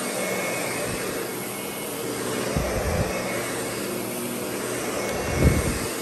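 Lindhaus Diamante upright vacuum cleaner running steadily as it is pushed over carpet, with a few low thumps near the middle and a louder one near the end.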